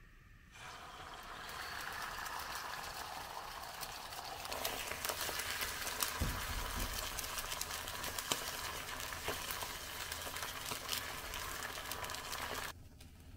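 Beaten egg sizzling in a hot non-stick frying pan, starting about half a second in as the egg is poured, with a spatula scraping and tapping against the pan as the egg is stirred. The sizzle stops suddenly near the end.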